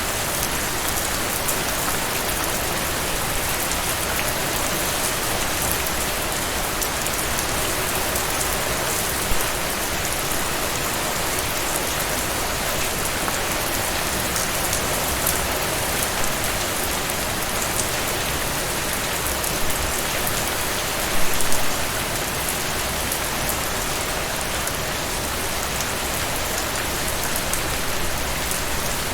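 Steady, heavy rain falling on a surface, a dense even patter of drops, with a few louder splashes about 21 seconds in.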